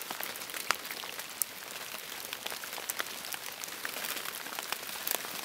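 Light rain falling: a steady hiss with scattered sharp ticks of individual drops.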